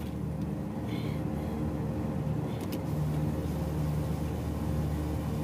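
A steady low mechanical hum, with a brief faint hiss about a second in.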